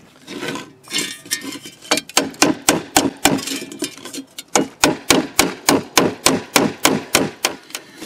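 Ball peen hammer tapping a dent out of an electric motor's metal end cover: a quick, even run of metallic strikes, about four a second, with a short pause near the middle.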